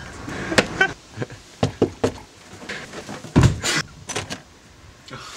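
Footsteps on a paved path, then a few heavy knocks on a front door, the loudest pair a little past the middle.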